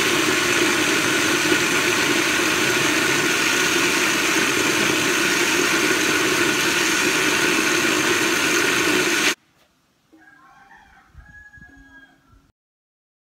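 Small electric blender running steadily as it grinds a wet spice paste (bumbu). It cuts off suddenly about nine seconds in.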